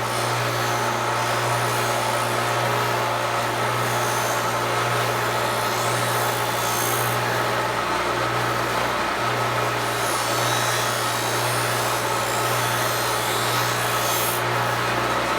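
Foley Belsaw 1055 Sharp-All sharpening machine running steadily with a constant motor hum, its grinding wheel grinding the edge of a knife held in a jig, with a hiss that comes and goes as the wheel cuts.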